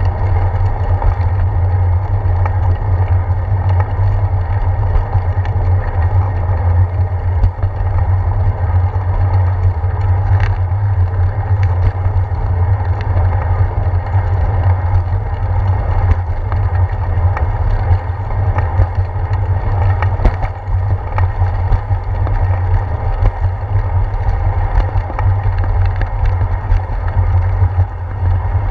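Bicycle riding on a wet concrete path, heard through a handlebar-mounted GoPro Hero 4: a steady low rumble of wind and road vibration with a hiss of tyres on the wet surface, and occasional knocks over bumps, twice clearly, about ten and twenty seconds in.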